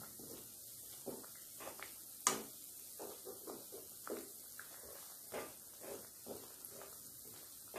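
Bread slices deep-frying in hot oil in a kadai, a steady sizzle, with scattered taps and scrapes of a wire skimmer turning the slices, the loudest about two seconds in.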